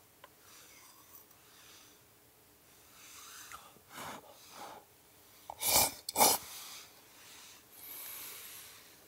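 A person's breath sounds: a few soft, breathy exhalations, then two loud, sharp bursts about half a second apart, like sneezes or hard blows, and a softer hiss near the end.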